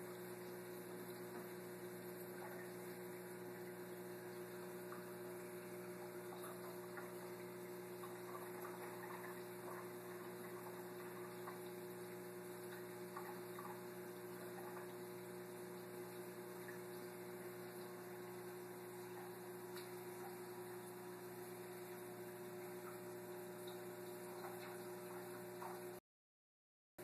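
Steady electrical hum holding one constant pitch, with faint scattered ticks; the sound cuts out completely for about a second near the end.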